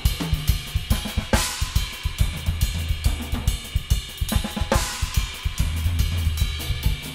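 Acoustic drum kit played in a solo: fast strokes on snare and toms over kick drum and hi-hat, with low tom tones ringing. Cymbals crash twice, about one and a half seconds in and again near five seconds.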